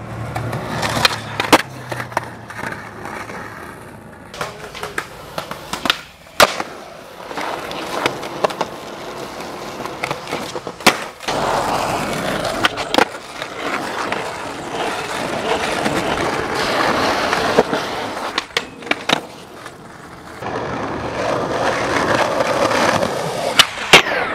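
Skateboard wheels rolling on concrete and asphalt, broken by sharp pops and clacks of tricks and landings. Near the end comes a grind along a metal handrail. It is picked up by a camcorder's built-in microphone.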